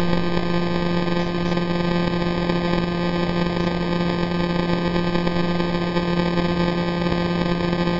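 Radio signal of the millisecond pulsar PSR J0437−4715, spinning 174 times per second, converted to sound: a steady, unwavering buzzing hum pitched at about 174 Hz, with a hiss of noise around it.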